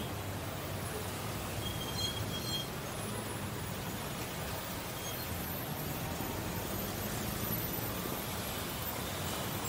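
Steady rumble of road traffic, vehicle engines running and tyres on the road, with a brief high squeal about two seconds in.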